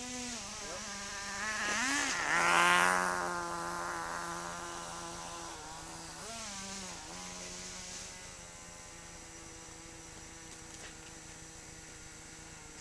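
Small nitro engine of a 1/10 scale Himoto RC truck buzzing. It revs up sharply about two seconds in, its loudest moment, and falls back, revs again briefly about six seconds in, then runs at a steady pitch.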